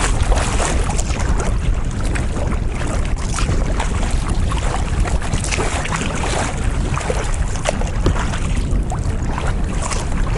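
Strong wind rumbling on the microphone, with choppy lake water splashing against a kayak in many short, irregular splashes.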